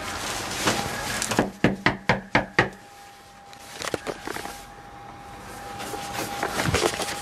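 About six quick knocks on a front door, rapped in a row a second and a half in, with a few lighter taps and handling sounds later.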